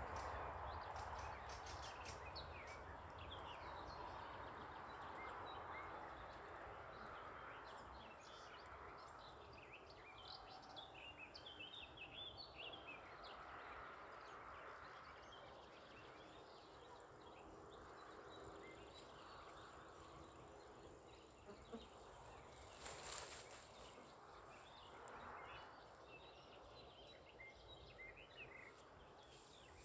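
Faint outdoor ambience: a low steady hiss with scattered quick, high bird chirps, busiest in the middle, and a brief noise burst about three-quarters of the way through.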